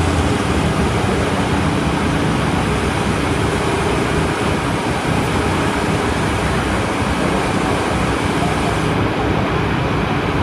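Steady road traffic noise: a continuous rush of passing vehicles with a low engine hum underneath.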